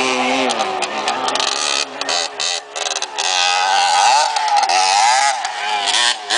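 125cc four-stroke single-cylinder trail motorcycle engine revving, its pitch rising and falling as the throttle is worked, with a few brief dips around the middle.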